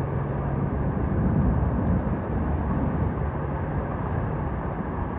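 Steady engine rumble with a constant low hum, and a few faint, short, high chirps over it.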